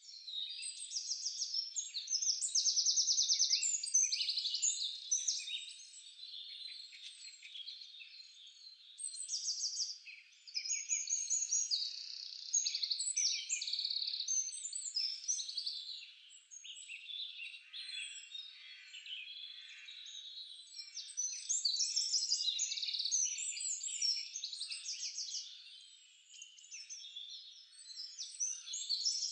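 Chorus of small songbirds chirping and trilling, rapid high twitters and short trills that overlap continuously and swell and fade in loudness.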